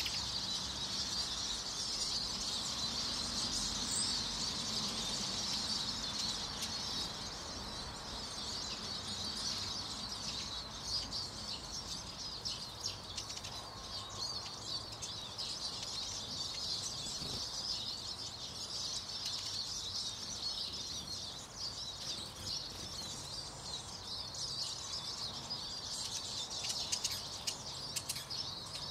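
A flock of Eurasian siskins twittering and chirping, many high notes overlapping in a continuous chatter, a little louder in the first few seconds.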